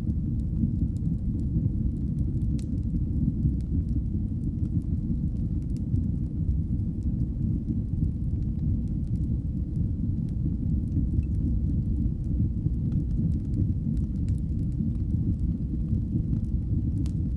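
Fire burning in a fireplace: a steady low roar with faint scattered crackles.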